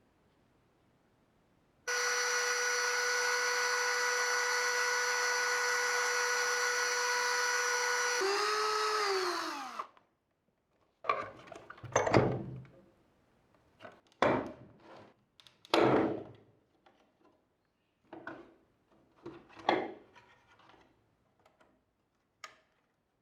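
A power drill runs at a steady speed for about six seconds, then is released and spins down with falling pitch. It is followed by a series of short, irregular scraping and knocking sounds.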